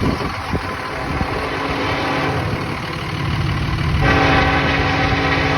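Norfolk Southern freight train's diesel locomotives running by with a steady engine drone; about four seconds in the locomotive air horn starts a steady blast.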